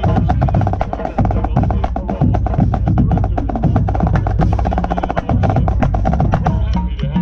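Marching drumline playing a fast, steady pattern on tightly tuned marching snares, with bass drums sounding underneath.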